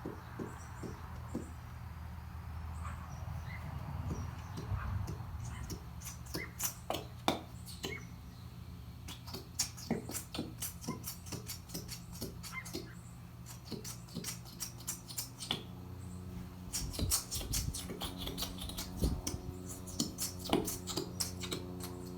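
Plastic bottle of metallic glue being squeezed and tapped against a bowl to empty the last of the glue: scattered clicks and taps, thicker in the second half, over soft background music.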